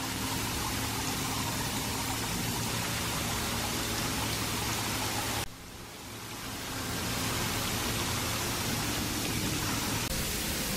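Steady rushing noise spread across all pitches, with a faint low hum under it. It fades in at the start, cuts out abruptly about five and a half seconds in, and fades back in.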